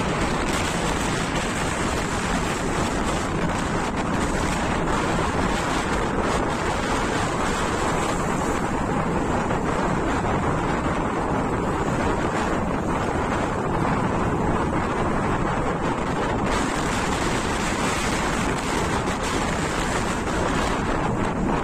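Strong wind blowing steadily over the microphone, with rough, wind-driven lake waves splashing and washing against a jetty.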